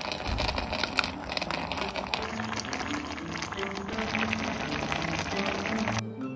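Mackerel and radish braise bubbling in its thick red chili-soy sauce in a pan, a dense run of small pops and crackles, with light mallet-percussion music underneath. The bubbling cuts off suddenly near the end, leaving only the music.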